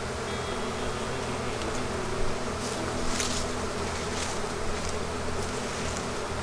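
Honeybee colony buzzing loudly from an opened hive, a steady dense hum of many bees. The bees are agitated and pouring out over the boxes ("boiling"). A few short clicks sound about two to three seconds in.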